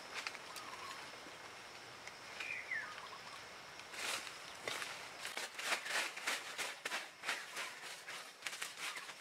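Outdoor forest ambience: a bird gives a single falling call about two and a half seconds in, over a faint steady high hum. From about four seconds on come many irregular short clicks and rustles.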